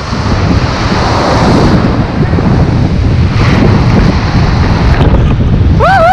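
Strong wind buffeting the microphone over surf. A brief high-pitched call bends up and down just before the end.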